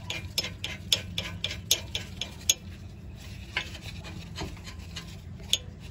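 Hand tools clicking and scraping on metal as the strut bolts are worked: sharp clicks several a second for about two and a half seconds, then a few scattered ones.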